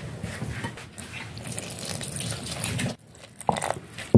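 Plastic spatula stirring and scraping damp, lumpy flour dough around a glass bowl, a gritty scraping that stops about three seconds in. A short sound follows, then a thump at the very end.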